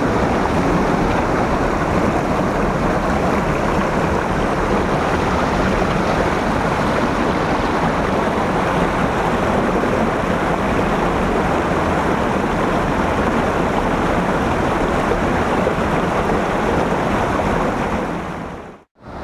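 Steady rush of falling and running creek water, an even roar that cuts out briefly near the end.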